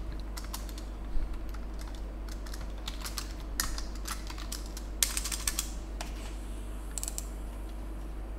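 Typing on a computer keyboard: key clicks come in short, irregular bursts with gaps between them, over a steady low hum.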